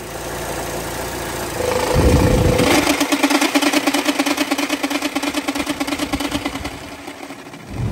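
The Chevy Sonic's 1.8L four-cylinder engine runs, and about two seconds in the electric radiator cooling fan kicks in with a loud low thump. The fan then runs with a loud hum that pulses fast and evenly: its bearings are worn out and the fan wobbles badly on its mount.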